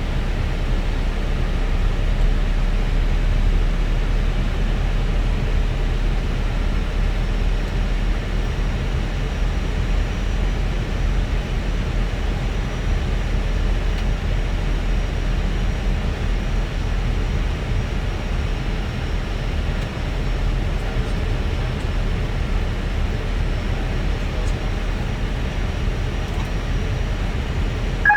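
Airbus A320 flight deck in flight: a steady rushing noise with a deep rumble underneath, from airflow and the engines, and a faint steady high whine.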